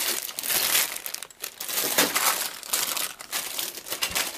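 Clear plastic bags of model-kit parts crinkling and rustling in irregular crackles as hands rummage through them in a cardboard box.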